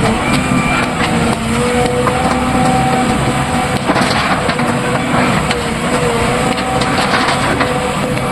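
Backhoe loader's diesel engine running under work, its pitch wavering as the load changes, with scattered clanks.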